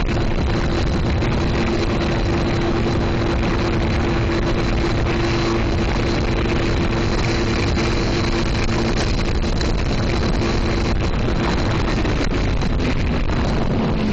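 Sea-Doo personal watercraft engine running steadily at speed, with a constant engine tone under heavy wind noise on the microphone. The engine tone drops slightly near the end.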